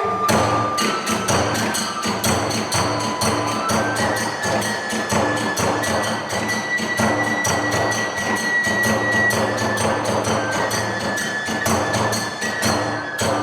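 Kagura ensemble playing at a fast, steady beat: taiko drum strokes and ringing tebyoshi hand cymbals, with a bamboo kagura flute holding long high notes over them.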